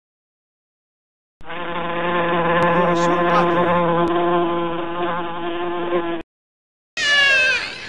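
A flying insect's steady wing buzz, starting about a second and a half in and lasting about five seconds.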